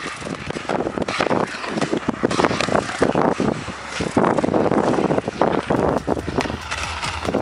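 Inline skate wheels rolling over rough concrete: a continuous gritty rolling noise broken by frequent small clicks and knocks.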